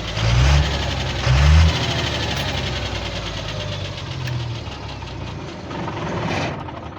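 Cummins diesel engine blipped twice with the throttle, then settling to idle, with a knock that comes up when it is revved. The knock is from worn connecting-rod small-end bushings.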